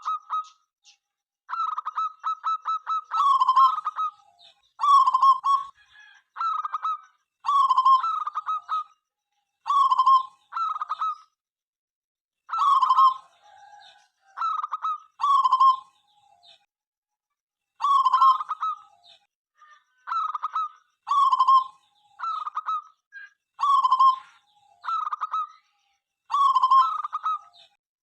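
Zebra dove (perkutut) calling: its rhythmic cooing song, phrase after phrase of clipped, rolling notes about a second and a half apart, with a rapid run of short notes about two seconds in.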